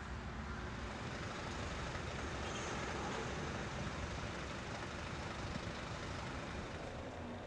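Steady outdoor vehicle noise: a low rumble of traffic with a lorry's engine running.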